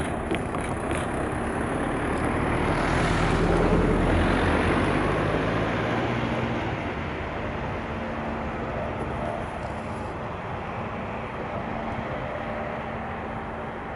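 Freight train of empty stake flat wagons rolling along the rails. The noise of the wheels builds for about four seconds and then slowly fades as the train draws away.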